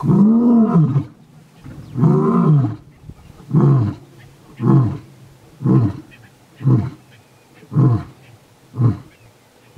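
Male lion roaring: two long, moaning roars followed by a run of shorter grunting calls about once a second, each briefer than the last, the lion's typical roaring bout.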